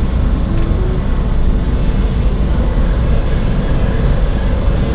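Semi truck under way: a steady, loud low drone of engine and road noise, with one brief faint tick about half a second in.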